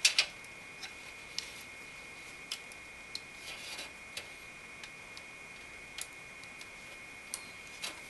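Faint scattered small plastic clicks and light rustling of fan cables and a Y-adapter plug being handled and pushed onto a motherboard fan header.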